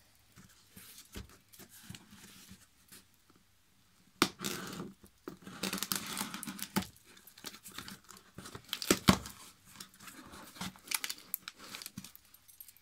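Scissors cutting the packing tape on a cardboard box. The first few seconds hold only small clicks; from about four seconds in come scraping and ripping of tape and cardboard with sharp clicks, the loudest a snap near nine seconds.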